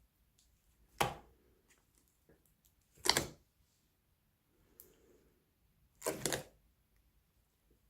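Slime being squeezed and folded by hand, with three sharp, squishy pops spaced a few seconds apart.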